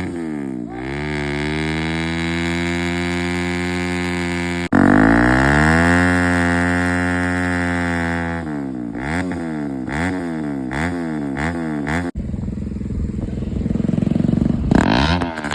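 Motorcycle engine revving: the revs climb and hold high, then blip up and down quickly about twice a second, with abrupt cuts between revving sequences.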